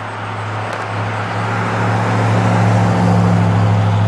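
1967 Dodge Monaco 500 with its 383 cubic-inch V8 driving past. Its steady low engine and exhaust note grows louder as the car nears and is loudest about three seconds in, as it goes by.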